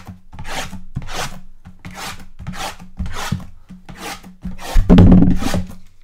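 A box cutter slicing open wrapped cardboard trading-card boxes: a quick run of scraping strokes, about two a second, the loudest and longest about five seconds in.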